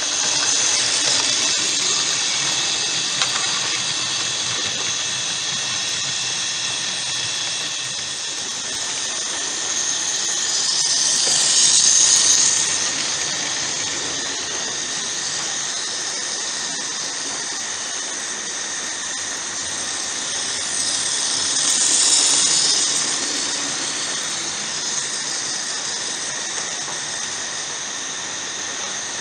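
Model train running on its track with a continuous high-pitched squealing whine. It swells louder twice, about twelve and twenty-two seconds in, as the train comes around the loop close by.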